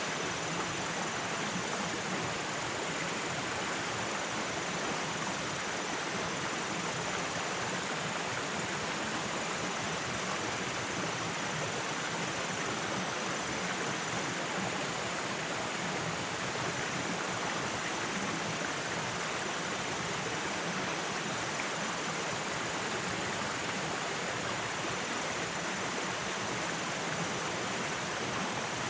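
Shallow rocky forest stream flowing steadily over stones, an even rushing of water.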